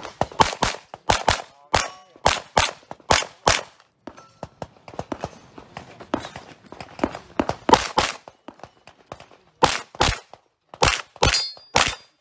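Competition handgun fired in rapid strings of quick pairs during a practical-shooting stage: a fast run of shots in the first three and a half seconds, a lull of about three seconds with only faint clicks while the shooter moves, then more pairs to the end.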